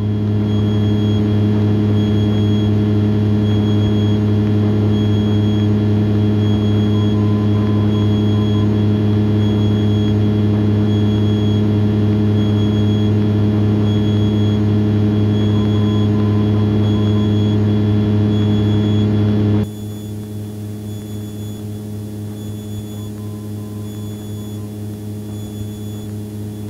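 Steady drone of a Piper Archer's four-cylinder Lycoming engine and propeller in flight, heard inside the cabin, with a faint thin whine coming and going above it. About twenty seconds in, the drone drops abruptly to a quieter, duller version of itself.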